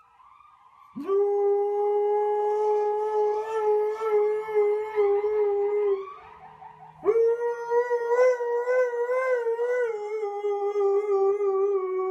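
Husky howling: two long, held howls, each swooping up at the start into a steady tone, the second with a wavering pitch.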